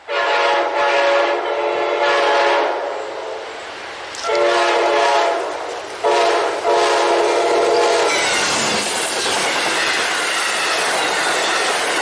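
A diesel locomotive's multi-tone air horn blows a series of blasts. The last four run long, long, short, long, the grade-crossing signal. From about eight seconds in, the steady rumble and wheel noise of a passing train follows.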